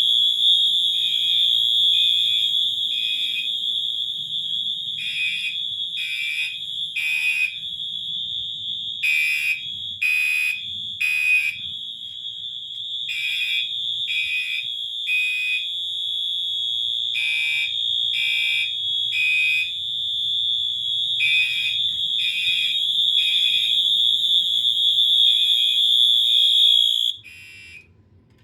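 Two fire alarm horn strobes sounding together, loud. A Wheelock MT holds a steady continuous horn, while a Gentex Commander 3 sounds code 3 (temporal) horn: bursts of three beeps with a pause between each group. Both cut off suddenly near the end.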